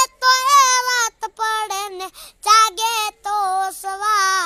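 A child singing a Gujarati song unaccompanied: long held notes that bend and waver in pitch, broken by short pauses between phrases.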